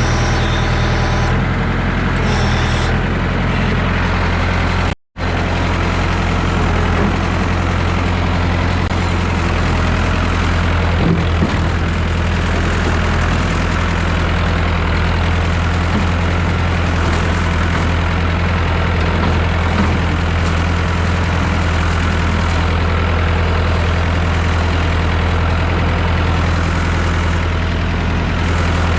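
1969 Massey Ferguson 3165 backhoe tractor's engine running steadily, with a brief break to silence about five seconds in.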